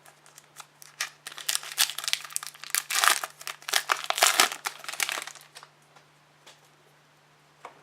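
A trading card pack wrapper being torn open and crinkled by hand: a dense run of crackling for about four seconds that dies away a little after halfway.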